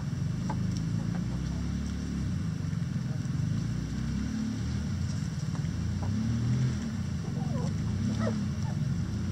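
A steady low rumble throughout, with a few faint chicken clucks from the flock about seven to eight seconds in.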